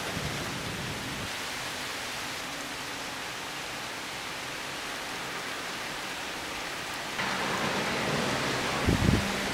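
Steady heavy rain hissing during a thunderstorm, growing louder about seven seconds in, with a brief low rumble of thunder near the end.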